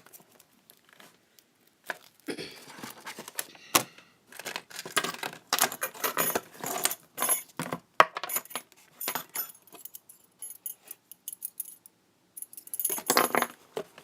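Small items from a parcel being handled and unpacked: repeated light metallic clinking and jangling mixed with rustling and clicks.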